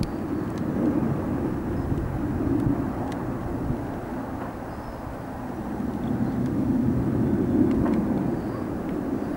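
Jet engine rumble from a four-ship formation of MiG-29 fighters flying past, a steady low noise that swells twice, once about a second in and again near the end.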